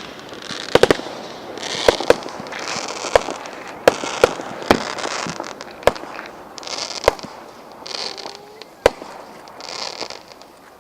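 Fireworks display: irregular sharp bangs, about a dozen, with one quick triple near the start, and bursts of crackling hiss between them.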